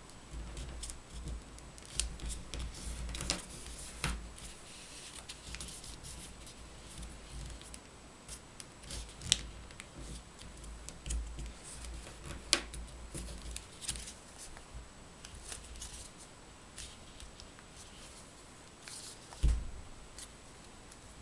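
Printed paper being folded and creased by hand: irregular rustling with sharp crisp crackles as the folds are pressed, and a dull thump near the end.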